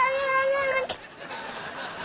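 A cat's long, drawn-out, wavering meow that ends just under a second in, followed by quieter sound.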